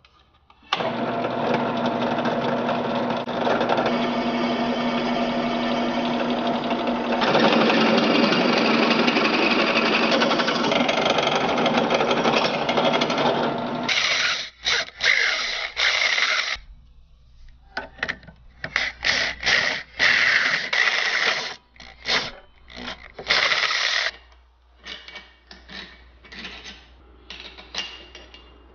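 Drill press running with a twist bit drilling into welded square steel tubing: a steady whir for about thirteen seconds that grows louder partway through, then drilling in a run of short bursts.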